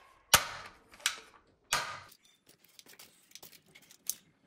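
Plastic toy dart blaster being handled: three sharp plastic clicks and rattles in the first two seconds, then a run of lighter ticks.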